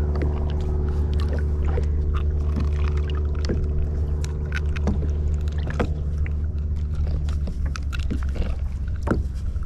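Steady low hum of a nearby boat motor, which changes and fades about seven and a half seconds in, with scattered short clicks and knocks of a fish being unhooked by hand on a kayak.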